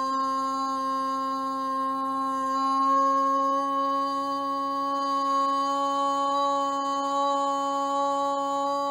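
A woman's voice chanting the solar plexus chakra seed syllable "Ram" as one long, steady held note.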